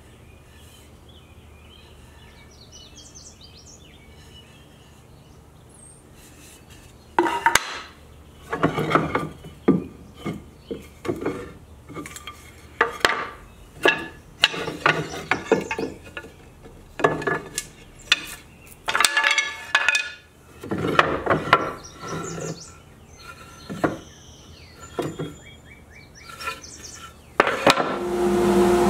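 Small hardwood offcuts, purpleheart among them, clattering and knocking against one another in a shelf cubby as they are sorted through by hand: irregular hollow wooden knocks starting several seconds in. Near the end a jointer's motor starts running with a steady hum.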